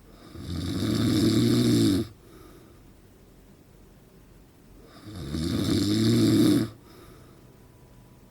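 A sleeping man in his forties snoring loudly: two long snores of about two seconds each, the second about five seconds in, each cutting off sharply, with quiet between them.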